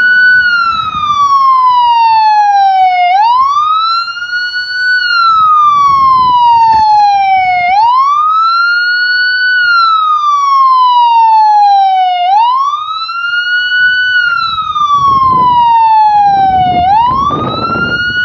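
Police car's electronic siren sounding a wail: each cycle sweeps quickly up in pitch, then glides slowly down, repeating about every four and a half seconds.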